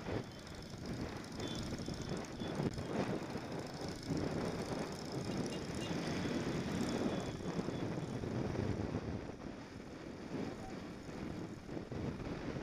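Motorcycle running at road speed, heard from on board: a steady engine drone mixed with wind rush, getting louder for a few seconds midway.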